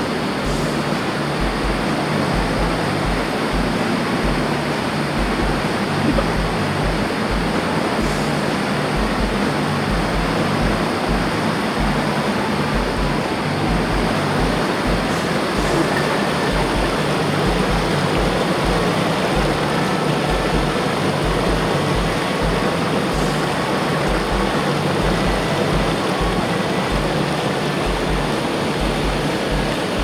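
Mountain stream rushing and splashing over rocks in small cascades: a steady, even rush of water.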